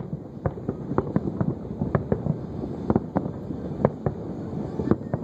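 Aerial fireworks display: an irregular run of sharp bangs and pops, several a second, over a constant low rumble.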